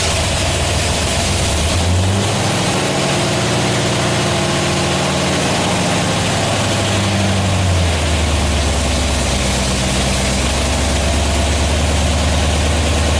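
A 1976 Corvette's V8, fitted with Holley Sniper fuel injection, catches and runs at a fast idle. About eight seconds in it drops to a lower, steady idle.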